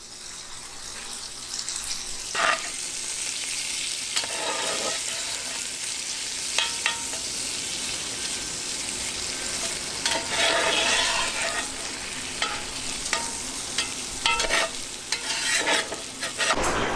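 Bacon pieces sizzling and frying in a cast-iron Dutch oven. The sizzle grows over the first couple of seconds, and a metal spatula scrapes and stirs them against the pot every few seconds.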